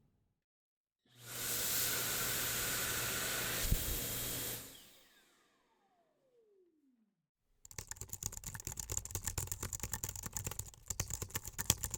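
A small electric blower appliance runs for about three and a half seconds with a steady rushing noise and low hum. Once it is switched off, its whine falls in pitch as the motor spins down. After a short pause comes rapid, uneven clicking of typing on a computer keyboard.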